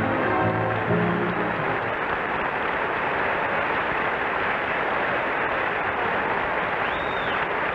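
A large audience applauding steadily, with an orchestra's music ending about a second and a half in.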